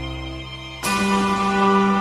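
Slow background music of held sustained chords; a little under a second in it changes abruptly to a new, louder chord.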